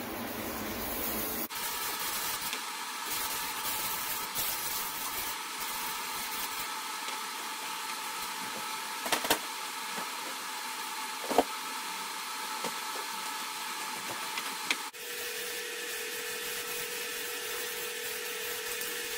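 A steady machine-like whirring hum with faint steady tones, changing abruptly twice, with a few short sharp knocks like tools being set down.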